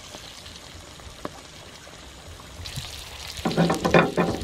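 Game bird pieces frying in hot oil in an aluminium wok: a faint hiss with a few light clicks, then from about three seconds in the sizzling grows into a loud, dense crackle.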